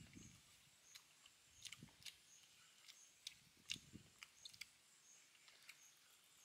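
Faint eating sounds of fried Muscovy duck being bitten, chewed and pulled apart by hand: scattered small crunches, clicks and smacks. A faint, short high chirp repeats about every three-quarters of a second behind them.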